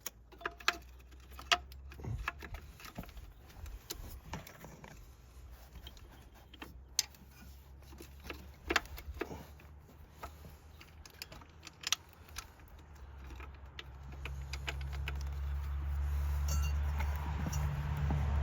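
Scattered small metallic clicks and clinks from tools and parts being handled while coil packs are fitted. From about fourteen seconds in, a low steady hum builds and grows louder.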